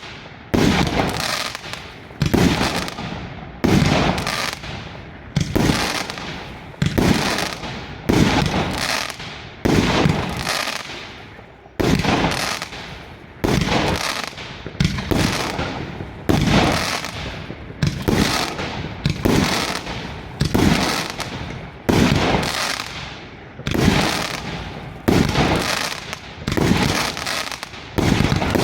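Svea Fireworks 117X50 firework cake firing shot after shot at an even pace, about four loud bangs every three seconds, each trailing off over most of a second before the next.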